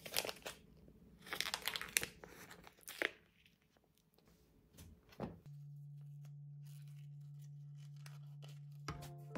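Plastic cheese packaging crinkling and tearing in the hands: clusters of short rustles and crackles over the first three seconds, then a single click. A faint steady low hum follows through the rest.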